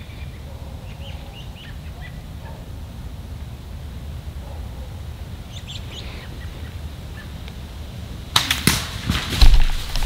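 Quiet woods with a low steady rumble and a few faint bird chirps; about eight seconds in, loud crackling and crunching of dry fallen leaves and handling thumps as the camera is picked up and moved.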